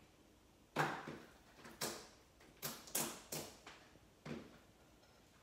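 Homemade white glue-and-borax slime being worked by hand and slapped against the tabletop: about six sharp slaps at irregular intervals, each fading quickly.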